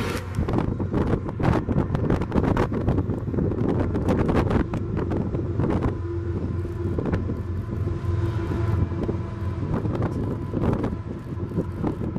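Diesel freight locomotives running across a high steel trestle, a low steady engine drone under heavy wind buffeting on the microphone.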